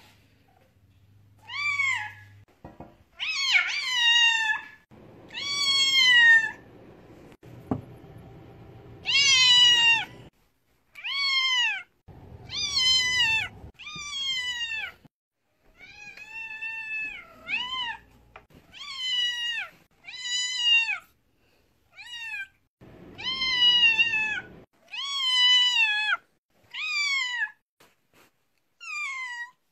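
A deaf long-haired white kitten meowing loudly over and over in screaming calls. There are about two dozen drawn-out meows, each rising and then falling in pitch, with half a second to two seconds between them.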